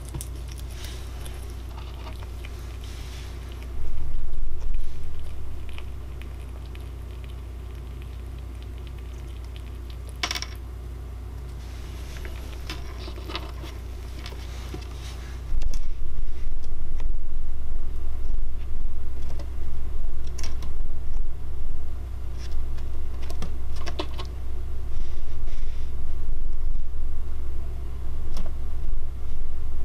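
Richardson's ground squirrel nibbling and cracking a sunflower seed: scattered small clicks and crunches from the shell, over a steady low rumble that gets louder about four seconds in and again about halfway.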